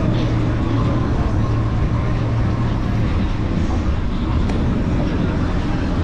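Steady wind rush and road noise on a handlebar-mounted camera riding an electric scooter, with a low steady hum that stops about halfway through.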